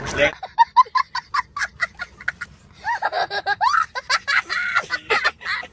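A young child laughing hard: a run of quick, short high-pitched laughs, then longer squealing laughs that glide up and down in pitch.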